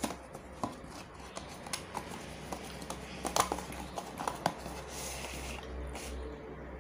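Wooden chopsticks tapping and scraping against a paper takeaway box as it is handled, a run of light clicks and taps that is busiest about three and a half seconds in. About five seconds in comes a brief papery rustle as a cardboard box is moved on the table.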